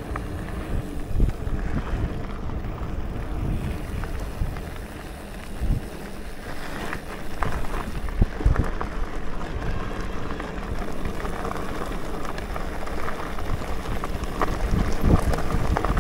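Wind buffeting the microphone over the rolling rumble of a Cube Stereo SL140 full-suspension mountain bike descending a trail, with sharp knocks and rattles as it hits bumps. Later the tyres crunch over loose gravel.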